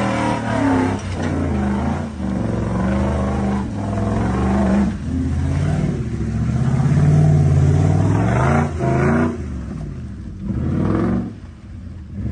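A 4x4's engine revving up and down hard, loudest and held highest about halfway through, then easing off near the end.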